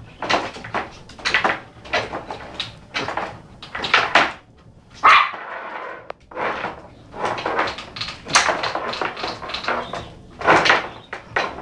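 A dog barking repeatedly in short, irregular bursts.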